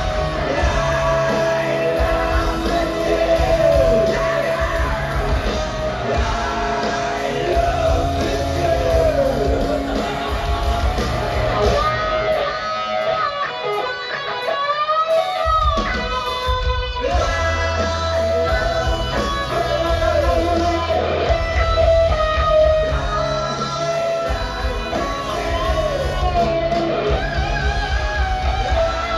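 Live hard rock band playing through an arena PA, heard from the crowd: electric guitars, bass and drums, with some singing. About halfway through, the bass and drums drop out for a few seconds, leaving a bending guitar line, then the full band comes back in.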